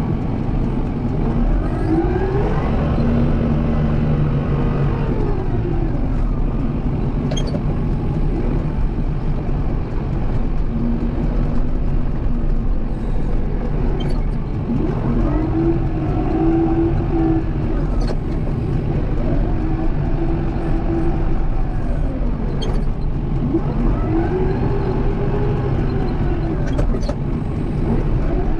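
Kubota M7060 tractor's diesel engine working steadily, its pitch rising and falling again every few seconds as it pushes snow back and forth with a pusher. A few short sharp clanks come through over it.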